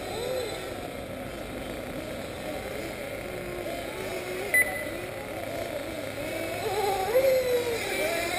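Small two-stroke nitro engines of 1/8-scale RC buggies revving up and down as they race around the track, one getting louder near the end as it comes closer. A brief beep about four and a half seconds in.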